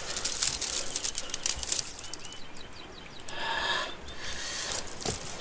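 Large stiff sheets of paper and matting being shaken and flapped, rustling and crackling, busiest in the first two seconds. A short higher-pitched sound comes about three seconds in.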